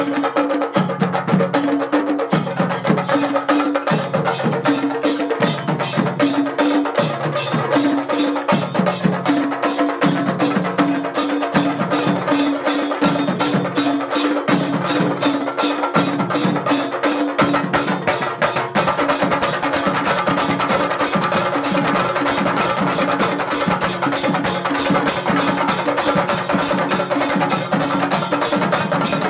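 Singari melam: a group of chende drums beaten with sticks in a fast, dense, continuous rhythm, with ilathalam hand cymbals clashing along.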